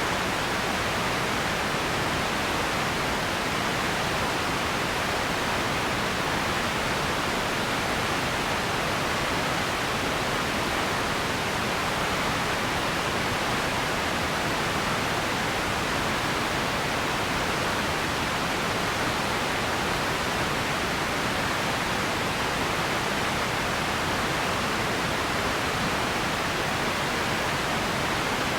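Radio static: a steady, even hiss with no tones or crackles, strongest in the upper middle of the range.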